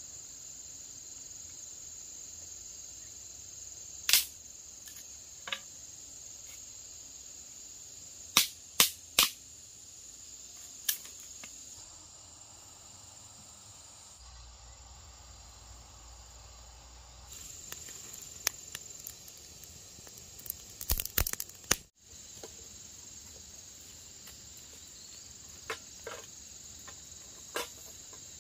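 Steady high-pitched insect chorus, with sharp snaps and clicks now and then from sticks being handled while a small fire is built, three close together about eight to nine seconds in and a quick run of them about 21 seconds in.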